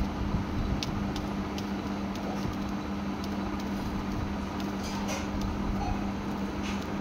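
Steady electrical hum with a low rumble running throughout, with a few faint soft ticks and rustles as the finished cloth pants are smoothed out by hand.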